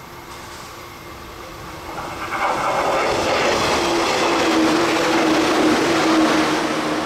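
Electric multiple-unit passenger train passing close by: its wheel and rail noise swells about two seconds in and stays loud, with a steady low hum running through it.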